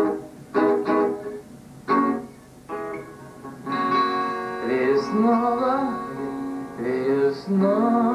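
Acoustic guitar playing: a few separate strummed chords in the first three seconds, then continuous playing. A man's wordless singing joins over the guitar from about halfway.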